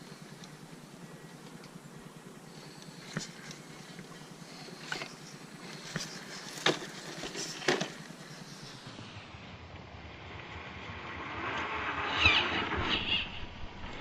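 Radio-controlled rock crawler working over rocks and mud: scattered sharp clicks and knocks from the tires and chassis, then a louder stretch of electric motor and drivetrain whine with wheel noise near the end.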